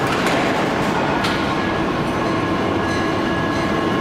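Steady, loud rumble of heavy forging-shop machinery around a large forging press working a red-hot shaft, with a steady whine of tones over it.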